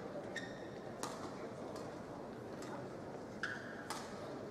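Badminton rally: sharp cracks of rackets striking the shuttlecock, the loudest about a second in and near the end, with short squeaks of court shoes on the mat, over a steady background hum of the hall.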